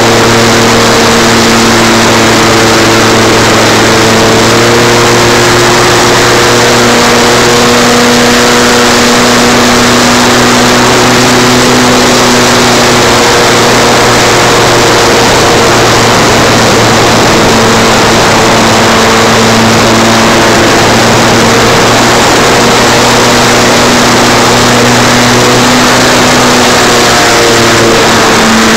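Electric motor and propeller of a Lanyu C182 foam RC plane in flight, heard from a dashcam mounted under its belly. A steady, loud drone with a rush of wind noise, its pitch shifting slightly a few times as the throttle changes.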